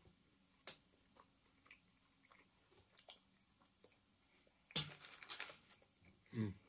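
Faint chewing of a small croissant sandwich with deli meat and cheese: scattered soft mouth clicks, a crackly bite a little under five seconds in, and a short low hum from the throat near the end.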